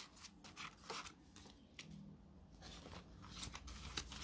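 Faint rustling and crinkling of polymer banknotes and a plastic binder envelope being handled, with a scatter of short soft brushes and clicks as the notes slide into the pocket.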